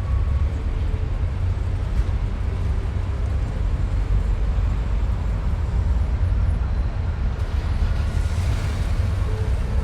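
City traffic ambience: a steady, deep low-end rumble of engines and tyres with a constant hiss of road noise. Near the end a vehicle passes a little closer.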